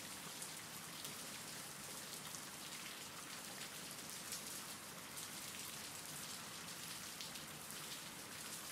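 Faint, steady rain falling: an even hiss with fine scattered drops.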